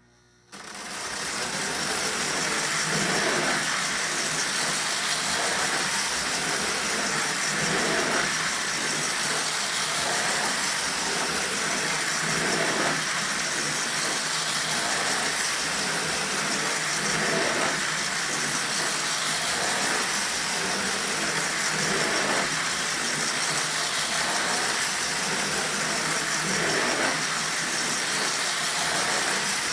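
Lionel No. 2065 4-6-4 toy steam locomotive and its train of tin tank cars running on O27 tubular track: a steady motor hum and wheel rattle that starts suddenly about half a second in and builds over the next second or so as the train gets up to speed, with a recurring clatter about every five seconds.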